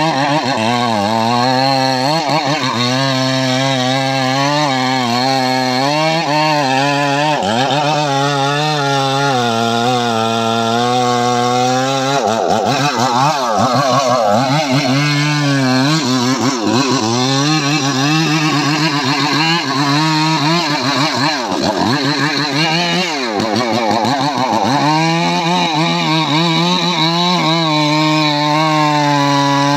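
Two-stroke chainsaw running at high revs while cutting into the base of a large tree trunk, its note wavering with the load. About twelve seconds in, the engine pitch starts dropping and rising again and again as the cut loads it, then settles steady near the end.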